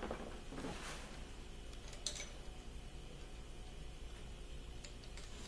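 Faint handling of engine pushrods as they are pulled out and set into a cardboard box, with a single sharp click about two seconds in and a faint tick near the end, over a steady low hum.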